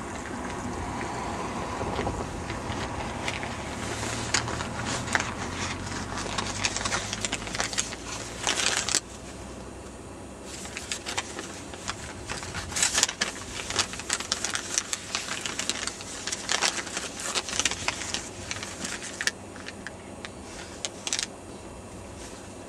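Irregular crackling and rustling close to the microphone, like paper being scratched or handled, over a low steady rumble that drops away about nine seconds in.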